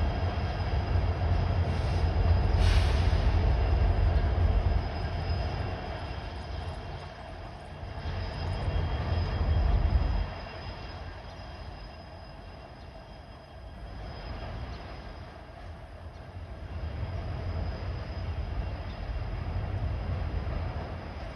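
Freight train cars rolling past: a low rumble with faint steady ringing tones above it and a sharp click about three seconds in. The rumble drops off abruptly about ten seconds in, then builds again near the end.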